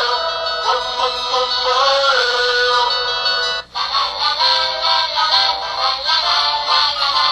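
Polyphonic ringtone melody playing from a Samsung SCH-V490 mobile phone's small speaker, thin with little bass. It breaks off briefly about halfway and another tune starts.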